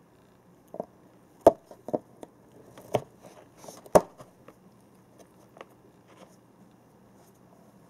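Cardboard box and printer packaging knocked and bumped by a cat moving about in the box: about five sharp knocks in the first four seconds, the loudest about a second and a half in and again at four seconds, with a brief rustle between, then a few lighter taps.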